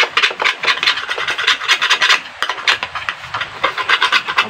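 A hand file rasping against a chainsaw chain in quick, repeated strokes as the cutters are sharpened by hand.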